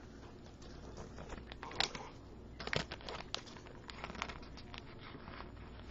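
Faint rustling, crinkling and small clicks of trading cards and their plastic packaging being handled.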